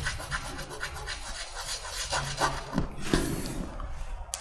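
Chalk rubbing on a blackboard in quick repeated strokes, as when drawing or shading, with a louder stroke about three seconds in.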